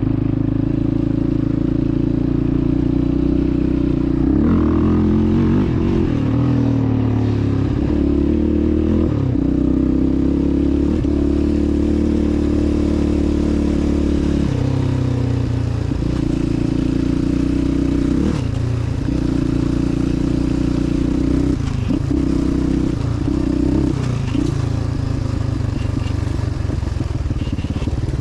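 2006 Yamaha Raptor 700R's single-cylinder four-stroke engine running under throttle as the quad is ridden. The revs hold steady for a few seconds at a time, then dip and pick back up again several times.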